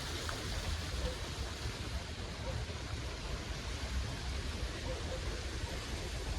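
Steady rain and wind: an even hiss of rainfall over a low, rumbling wind.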